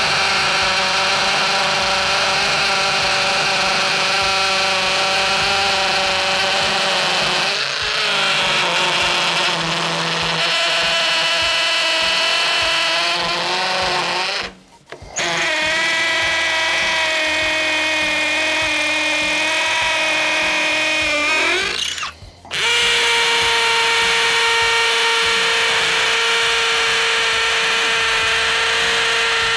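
Cordless brushless hammer drills boring into a concrete block, a steady loud whine and buzz: a Ryobi ONE+ HP hammer drill first, then, after two brief stops about 15 and 22 seconds in, an orange Ridgid hammer drill running with a steadier, lower tone.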